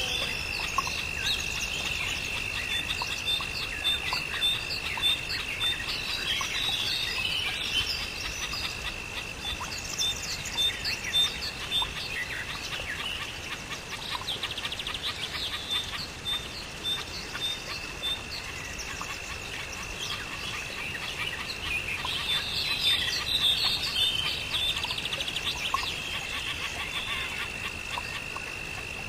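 Several birds chirping and calling over a steady high-pitched drone, with a run of short, evenly spaced notes repeating through it.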